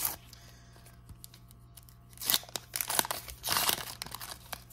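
Foil wrapper of a Panini 2018 World Cup sticker packet being torn open by hand and crinkled as the stickers are pulled out: a brief tear at the start, then several short bursts from about two seconds in.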